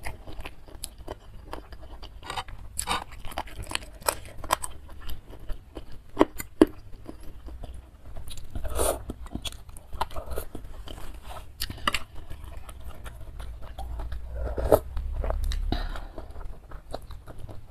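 Close-miked eating sounds: wet chewing of spicy instant noodles and meatballs in broth, with many small clicks and smacks, and a longer slurp of noodles near the end.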